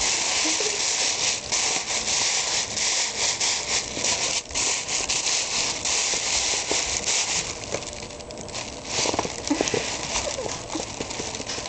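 Tissue paper and a paper shopping bag crinkling and rustling as a Siamese kitten shifts about inside and a hand reaches in among the paper, with a dense crackle throughout.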